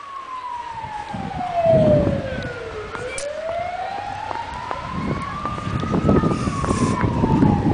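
An emergency vehicle's wailing siren, its pitch sliding slowly down, up and down again, about three seconds per sweep. Low rumbling noise runs under it and is loudest about two seconds in.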